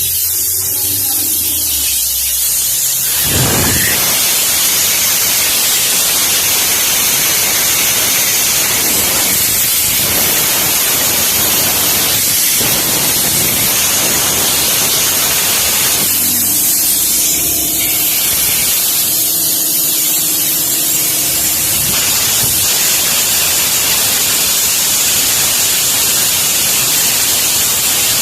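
Loud, steady hissing noise that runs without a break.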